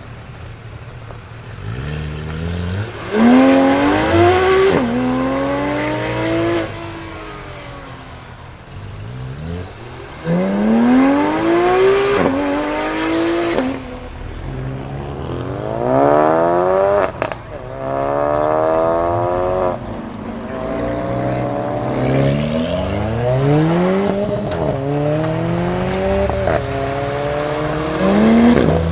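Several supercar engines revving hard as they accelerate away one after another, each note climbing in pitch and dropping sharply at every upshift.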